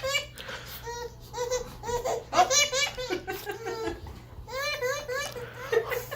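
A baby laughing in repeated bursts of giggles, with babbling between them.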